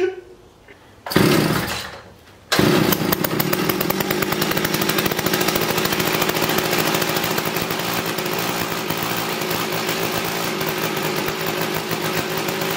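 McCulloch 610 two-stroke chainsaw engine firing briefly about a second in, then catching after a short gap and running steadily with a rapid even beat. It has just been brought back to life after long storage and a carburettor clean, and is not yet tuned.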